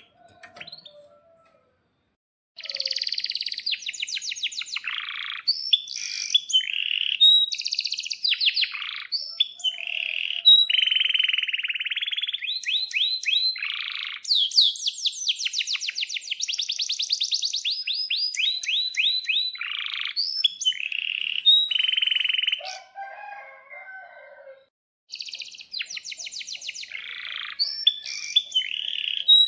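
Male canary singing a long, fast song of trills and rolling notes, starting a couple of seconds in. There is a short break about three-quarters through before the song resumes.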